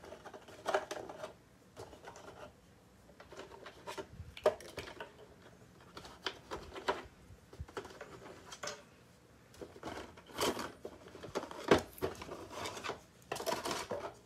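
Plastic packaging being handled: a black plastic packing tray and its parts being taken apart, with scattered irregular clicks, knocks and rustles. The loudest knock comes near the end.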